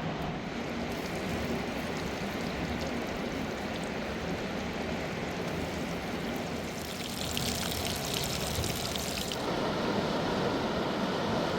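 Mountain river water rushing as a steady wash. A brighter hiss with small splashy ticks comes in about seven seconds in, and the sound turns deeper about two seconds later.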